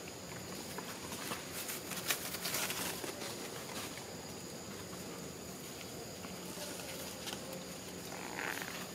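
Forest-floor ambience: leaves and leaf litter rustling and crackling, loudest between about one and a half and three seconds in, as a baby long-tailed macaque shifts where it lies. A steady high insect hum runs underneath, and a short high sound comes near the end.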